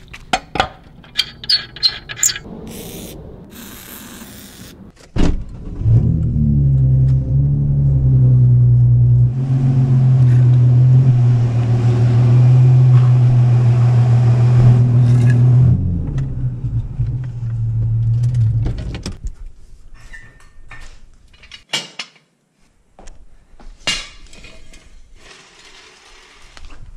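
Short hissing bursts from an aerosol lubricant spray can, among a few sharp clicks. Then a loud, steady low hum with a hiss over it, lasting about thirteen seconds, followed by scattered knocks.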